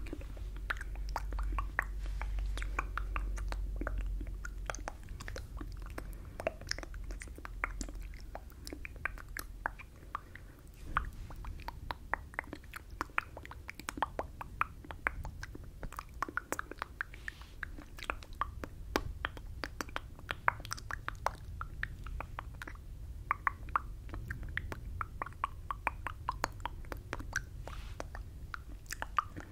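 Wet mouth clicks and lip smacks from words mouthed without voice right at a furry-windscreened microphone, a dense, irregular patter of small clicks.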